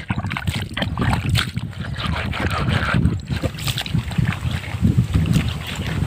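Wet scraping and splashing as small fish are rubbed by hand against a wet rock to clean them, in many quick irregular strokes, with wind rumbling on the microphone.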